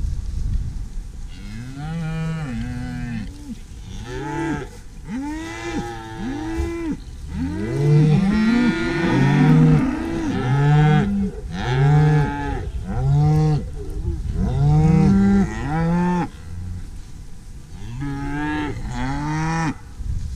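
Several cows mooing again and again, their calls overlapping, busiest through the middle.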